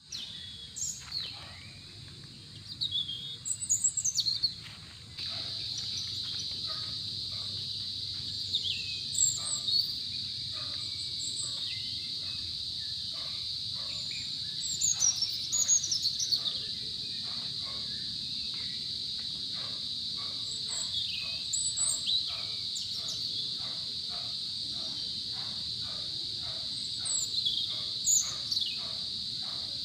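Crickets chirping in a steady high drone, with birds calling in short falling chirps now and then. The drone grows louder about five seconds in.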